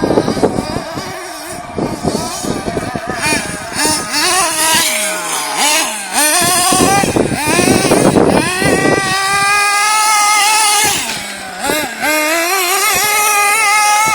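Small nitro engine of a 1/8-scale GS Storm Evolution RC buggy, revving up and down as it is driven, its high-pitched whine rising and falling repeatedly and held at high revs for a few seconds in the middle.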